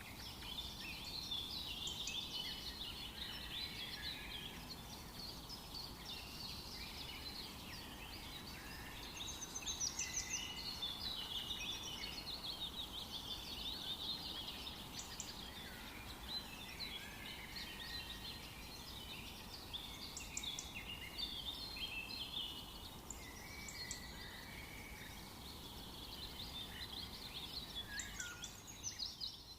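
Chorus of many songbirds chirping and trilling over one another, with a faint low background rumble.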